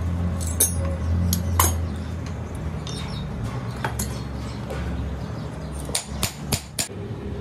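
Metal hand tools and small steel parts clinking and knocking as they are picked up and set down, with a quick run of four sharp metal taps near the end, over a steady low hum.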